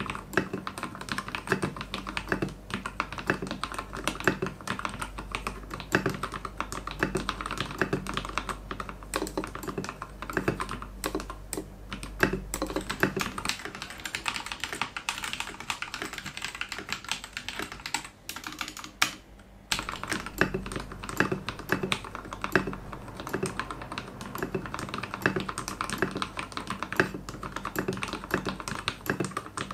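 Typing on a Royal Kludge RK68 65% mechanical keyboard: a fast, irregular patter of key presses. The outer stretches are the modded board, with lubed switches, silicone sound dampening and ABS XDA-profile keycaps. The middle stretch is the stock board with its original switches and keycaps, for comparison.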